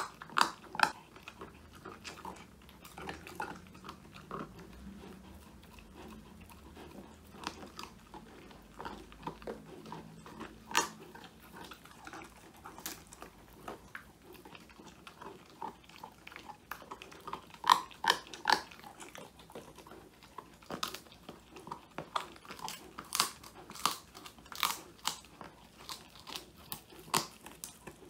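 Old English Sheepdog puppy chewing a crunchy whole-quail treat: irregular sharp crunches and bites, sparse through the middle and coming in quicker, louder runs in the second half.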